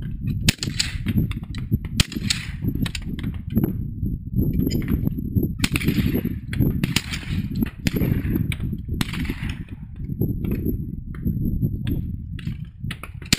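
Shotgun shots: two sharp reports about a second and a half apart near the start, the second the loudest, then several more reports with a ringing tail later on, over a steady low rumble.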